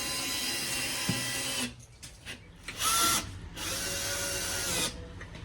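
Power drill driving screws into a screen door frame, in three runs: a long one, a short one about three seconds in, and another long one that stops near the end.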